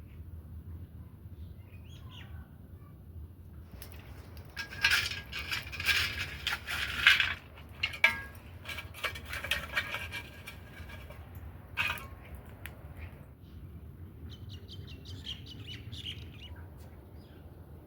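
Birds chirping in short, busy bursts, densest between about four and eight seconds in, with a quick run of calls near the end, over a steady low rumble.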